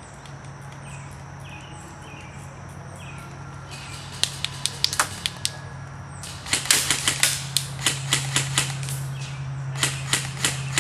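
Airsoft guns firing: quick strings of sharp cracking shots, the first about four seconds in, a longer run a couple of seconds later and a short one near the end, over a steady low hum.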